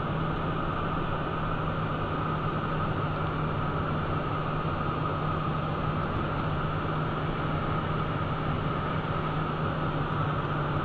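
Steady cockpit noise of a Cessna Citation 501 in descent: its twin Pratt & Whitney JT15D turbofans and the rush of air over the airframe, an even hiss with a constant low hum under it.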